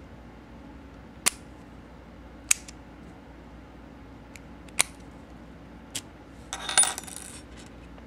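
Brass Master Lock padlock worked with its key: four sharp metallic clicks of the shackle and lock mechanism, then a short metallic jangle of the key near the end.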